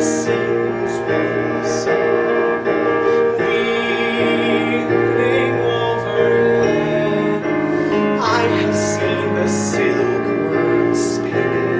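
Musical-theatre ballad performed live: keyboard accompaniment under long, held sung notes.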